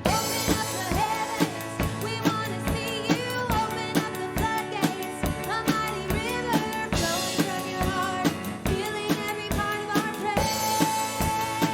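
Church praise band playing a worship song: a drum kit keeps a steady beat under sustained keyboard chords and a moving melody line.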